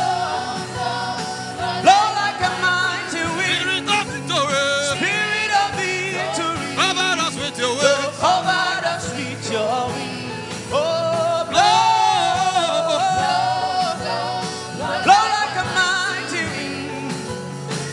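Gospel worship song: a voice singing long, wavering notes over instrumental backing with a steady beat.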